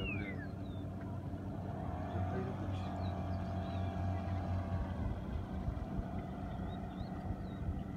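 Boat engine running steadily with a low hum, which swells a little between about two and five seconds in.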